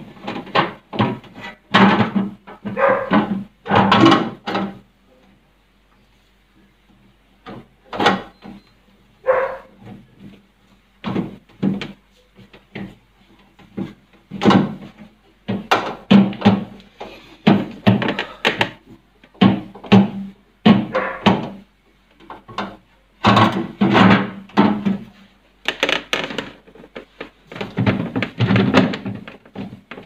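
A cloth rubbing and squeaking over the plastic walls and shelves inside a refrigerator, with hands knocking against the plastic crisper cover and sliding shelf: a run of short, irregular thuds and rubs, pausing about five seconds in and picking up again a couple of seconds later.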